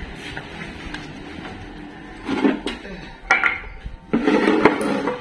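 Metallic clanks and rattles from a mini buggy's rear axle as the rear wheel is worked by hand to test a newly fitted disc brake. There are three bursts, about two, three and four seconds in, and the last is the longest and loudest.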